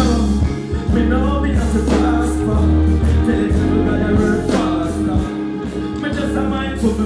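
Loud live concert music over a stage sound system: a backing track with a heavy, steady bass line and a deejay's vocals on the microphone over it.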